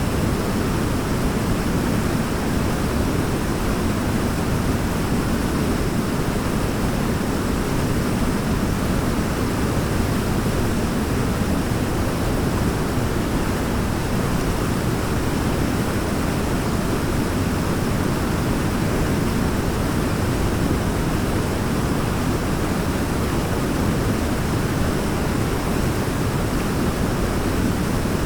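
Waterfall: a steady, unbroken rush of falling water, heaviest in the low range.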